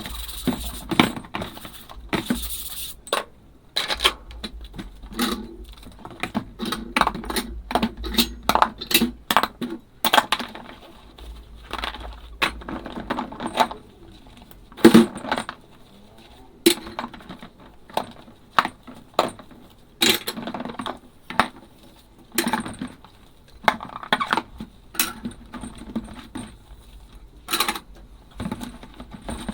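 Ceramic and glass dishes clinking and knocking against each other as they are washed by hand, in many sharp, irregular clinks about a second or less apart.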